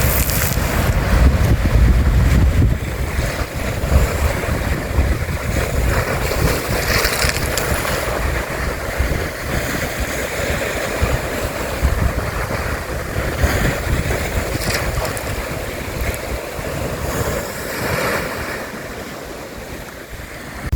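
Lake Michigan waves washing in, swelling and easing every few seconds, with wind buffeting the microphone, heaviest in the first few seconds.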